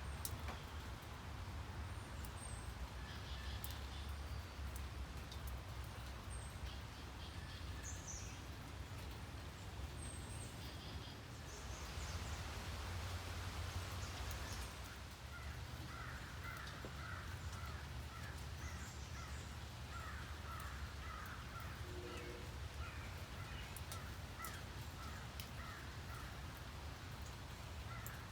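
Steady rain hiss with a low rumble underneath, swelling louder for a few seconds near the middle. From about halfway in, a fast run of short animal calls repeats over the rain.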